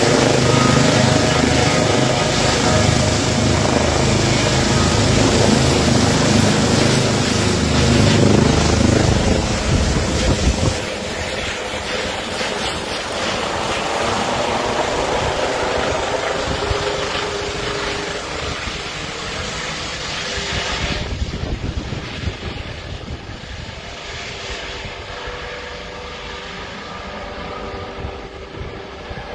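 Air ambulance helicopter flying overhead and climbing away after takeoff: rotor beat and engine noise, loud at first. About eleven seconds in the low rotor beat drops away sharply, and the sound then fades steadily as the helicopter recedes.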